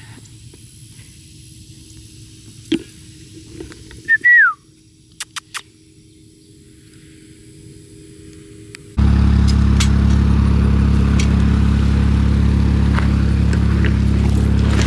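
Quiet outdoor ambience with one short falling bird chirp and a few sharp clicks. About nine seconds in, a loud, steady vehicle engine running close by cuts in.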